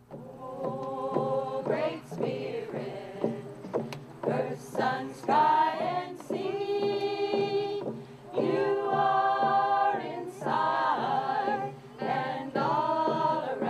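A group of women and children singing together in short phrases of held notes, with hand-held hide frame drums struck with beaters along with the song.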